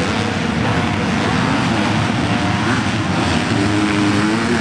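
Motocross bikes' 250cc engines revving hard as the riders race past, one bike's engine note standing out strongly near the end.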